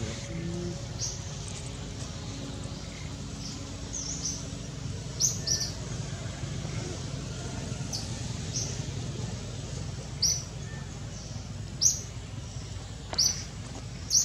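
Short, high bird chirps repeating irregularly every second or two, over a steady low outdoor rumble.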